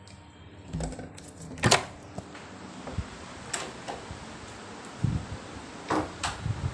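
A few scattered clicks and knocks, the loudest about a second and a half in, from handling and moving about a room, including a metal door handle being worked.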